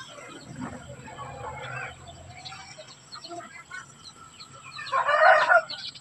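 Bird calls, the loudest a single pitched call about five seconds in that lasts under a second.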